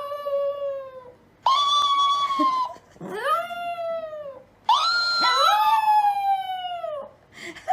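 A pet howling in long drawn-out calls, each sliding down in pitch: four calls, the last two overlapping near the end.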